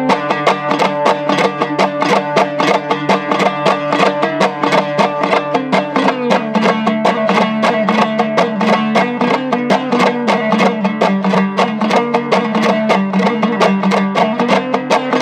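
Instrumental break of a Hazaragi folk song: a plucked string instrument strummed fast in an even rhythm, about four strokes a second, over a held low melody line.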